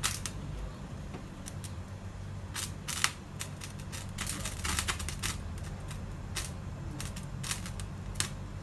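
Scattered sharp clicks and taps, irregular and about a dozen in all, as a plastic oil container is handled and tipped to pour oil into a frying pan, over a steady low hum.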